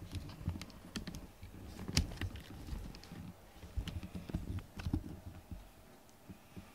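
An irregular run of sharp clicks and soft thumps close by, thinning out near the end.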